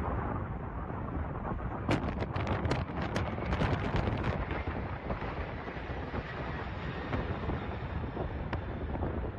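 Four General Electric CF6 turbofans of a C-5M Super Galaxy at takeoff power, a deep steady rumble, with wind buffeting the microphone. A run of sharp crackles comes through about two seconds in.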